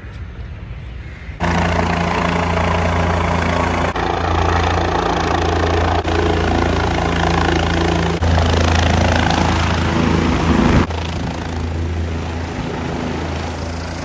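Light helicopter landing: steady low rotor and engine noise comes in suddenly about a second and a half in, stays loud through the descent, then eases to a somewhat quieter steady running once it is on the pad near the end.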